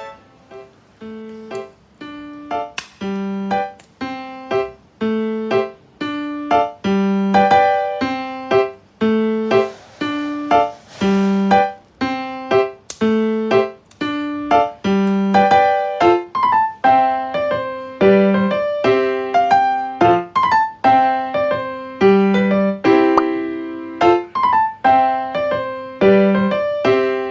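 Background music: a bright, bouncy piano or electric-piano tune with a steady beat of short, separate notes.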